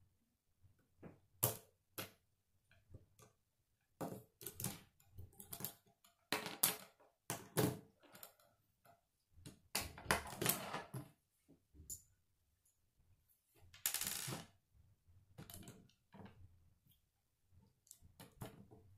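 Plastic K'nex rods and connectors clicking, snapping and clattering as they are handled and pressed together. The clicks come irregularly, with a longer rustling clatter about two-thirds of the way through.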